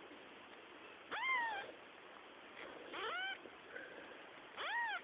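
Tiny young kitten mewing three times, high-pitched cries that each rise and then fall in pitch.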